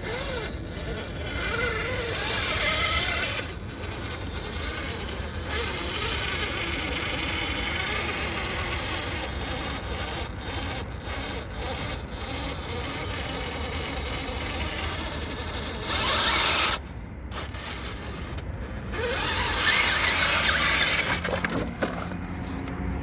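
Radio-controlled electric mud-bogger truck driving on dirt: the electric motor whines up and down in pitch with the throttle, with two louder bursts of power in the second half.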